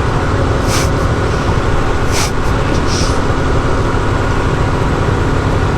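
Motorcycle engine running steadily with a dense rumble, with three short hisses about one, two and three seconds in.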